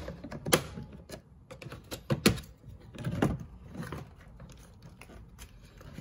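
Irregular plastic clicks and snaps as the window switch panel is pried out of a door trim panel with a plastic trim tool, the clips releasing. The sharpest snap comes about two seconds in.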